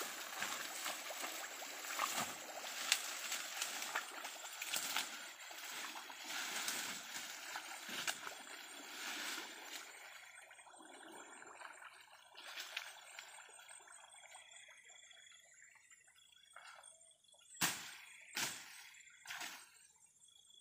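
Water splashing and sloshing for about ten seconds, then fading, followed near the end by three sharp knocks.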